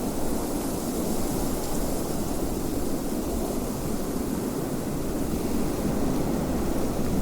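Steady wind blowing: a low, even rushing noise with a faint hiss above it, without gusts or breaks.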